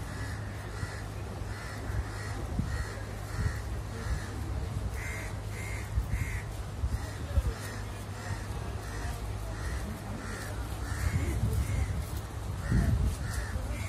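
Crows cawing over and over, about two short calls a second, over a steady low rumble.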